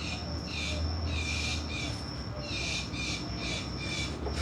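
A bird calling in a fast, steady series of short chirps, about two to three a second, over a low steady hum.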